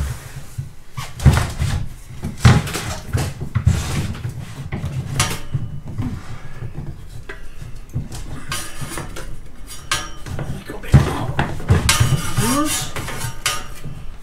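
Electrical cable being pulled and fed along a metal garage-door rail: a run of metallic clinks and knocks with scraping rustles in between, the sharpest knocks about a second in, around two and a half seconds, and near eleven seconds.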